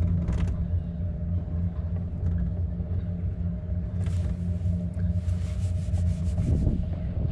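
Tram car running with a steady low rumble and hum. A quick rattle comes just after the start, and a rapid clatter runs from about four seconds in until near the end.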